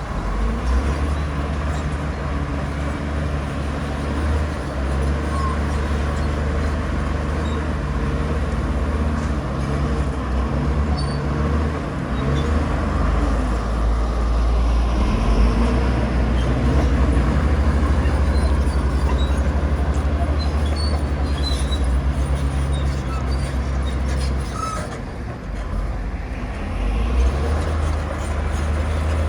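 Heavy diesel earthmoving machinery running, a deep steady engine drone that eases briefly near the end.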